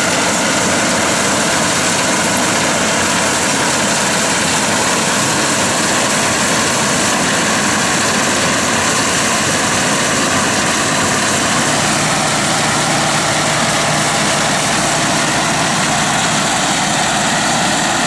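Kubota tractor's diesel engine and the shaft-driven threshing machinery of a pull-type combine running steadily together while harvesting rice. A deeper low hum comes in about twelve seconds in.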